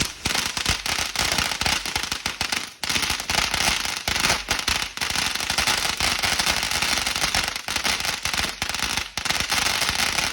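A long run of firecrackers going off in rapid, continuous succession: a dense, loud crackle of pops that cuts off suddenly.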